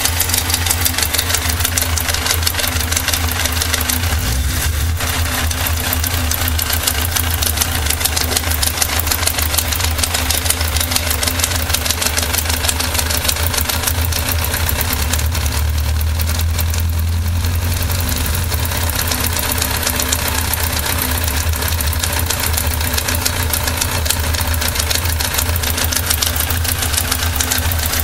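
Yamaha XJR 1200 motorcycle's air-cooled inline-four engine idling steadily, swelling slightly a couple of times.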